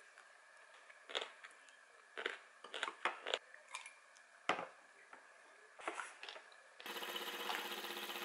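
Light clicks and knocks of a wooden spoon against a ceramic bowl and a plastic cup being picked up. Near the end, an industrial sewing machine takes over, running steadily.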